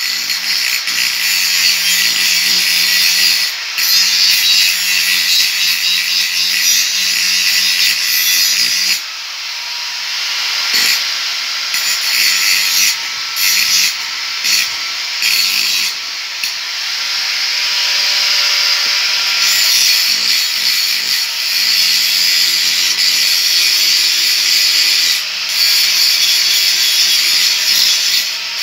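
Electric angle grinder with its disc against the steel hoe blade, grinding the metal: a steady motor hum under a harsh grinding hiss. The disc grinds continuously, is lifted off with short breaks through the middle, then grinds steadily again.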